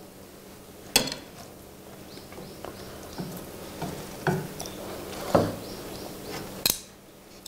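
Close-miked eating of jjapagetti noodles: chewing and slurping mouth noises with a few sharp clicks of chopsticks against porcelain plates and bowls, the clearest about a second in and near the end.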